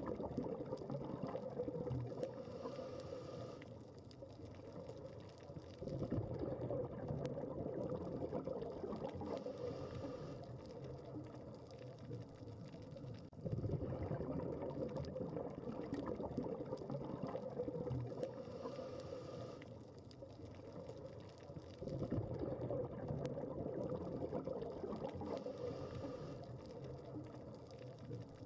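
Scuba diver breathing through a regulator underwater: a bubbly rumble of exhaled air alternating with a short hiss, repeating about every seven to eight seconds, four times.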